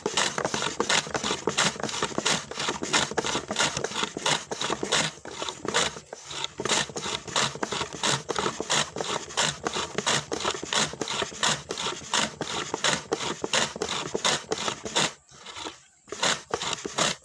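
Wooden hand slicer cutting shallots: a wooden block pushed quickly back and forth over the blade, making a scraping stroke about three or four times a second, with a short pause about 15 seconds in.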